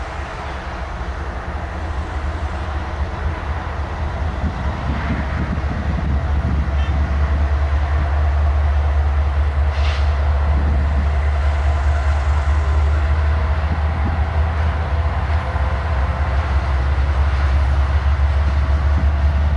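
Diesel locomotives of an approaching freight train: a deep engine rumble that grows louder over the first eight seconds and then holds steady.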